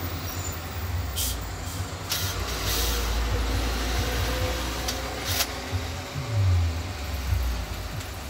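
Cordless drill run in a few short bursts, its bit boring into a piece of tyre rubber, over a steady low rumble.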